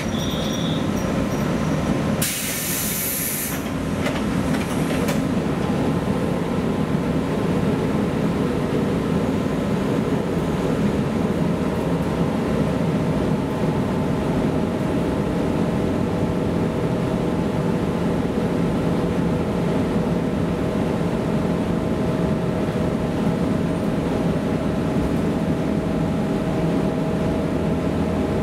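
Cabin of a JNR 115 series motor car (MoHa 114) running at speed: the steady hum of its MT54 traction motors and gearing under the floor over the rumble of wheels on rail. A brief high hiss about two seconds in.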